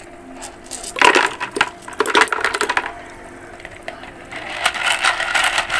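Handfuls of small pebbles dropped into a plastic tub of shallow water, clattering against the tub and each other in quick clusters of clicks: once about a second in, again about two seconds in, and a longer run from about four and a half seconds on.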